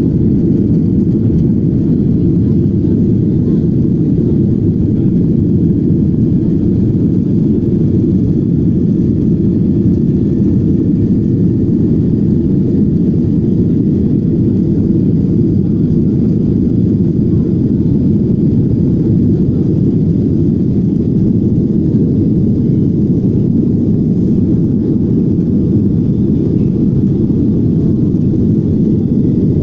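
Steady low rumble of engine and airflow noise inside the cabin of a Boeing 737-800 climbing after takeoff, its CFM56-7B engines under climb power. The level stays even throughout.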